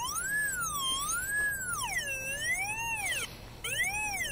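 Pipehorn 800HL locator receiver's audio tone, swooping up and down in pitch about once a second as the receiver is swept over the ground. It is picking up the high-frequency signal induced on a buried feeder wire. In the second half the swoops sit lower and break into shorter pieces with brief gaps.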